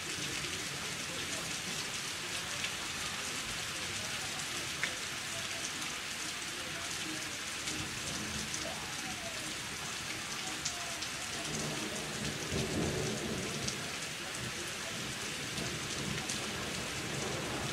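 Steady rain falling during a thunderstorm, with many individual drops ticking. A low rumble of thunder swells and fades about twelve seconds in.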